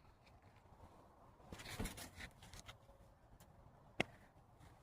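Quiet room with a soft rustle near two seconds in, then one sharp click about four seconds in: a thrown bottle-cap ball, two bottle caps pressed together, landing on a hard surface.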